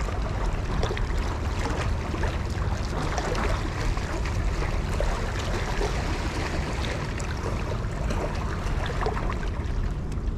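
Small sea waves washing and trickling among shoreline rocks: a steady, even wash of water with fine crackling.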